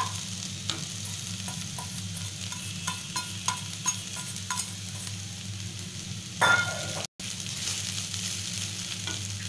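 Wooden spatula stirring soaked poha (flattened rice) into fried onions in a non-stick wok, with a steady sizzle, a low hum underneath and light ticks of the spatula against the pan. A louder scrape comes about six and a half seconds in, and the sound cuts out for an instant just after.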